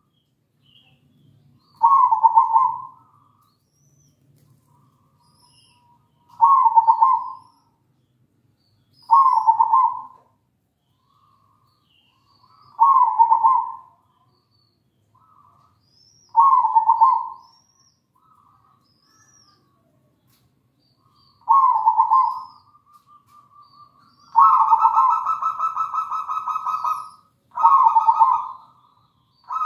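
Local-strain zebra dove (perkutut) cooing: a short, rolling coo phrase every three to four seconds, and near the end one longer trilling coo of about three seconds.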